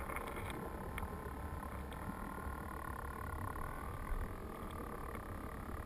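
Creek water moving over the streambed, heard through a submerged camera's waterproof housing: a steady low rumble with a few faint ticks, the sharpest about four seconds in.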